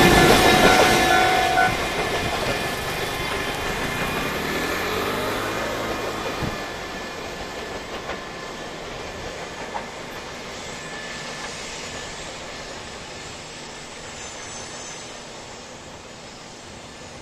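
EF210-300-series electric locomotive banking at the rear of a container freight train, passing close with a motor whine and rail noise, then fading steadily as it pushes the train away up the grade. The whine bends in pitch about halfway through as the locomotive draws off.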